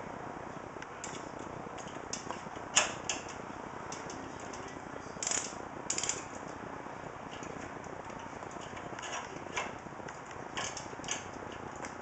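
Hand screwdriver driving the mounting screws of a computer case fan into a metal PC case: irregular clicks and scrapes of the bit, screw and fan frame, the loudest a sharp knock about three seconds in, over a steady hiss.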